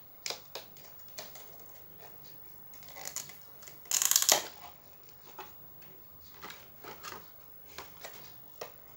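A Hot Wheels blister pack, card and plastic, crinkling and clicking as it is picked open by hand, with one loud tearing rip about four seconds in.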